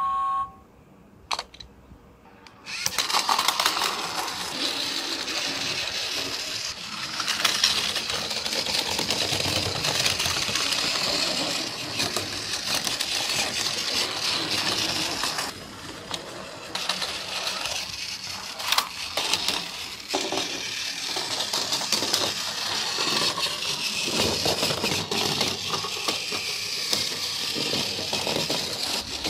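Battery-powered Plarail Thomas the Tank Engine toy train running on plastic track: its small gear motor whirring and its wheels clattering over the track joints, starting about three seconds in after a short click.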